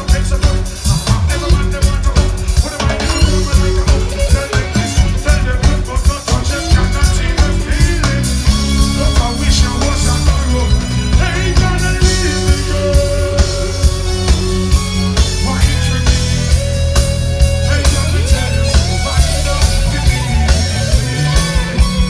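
Live reggae band music with drums keeping a steady beat.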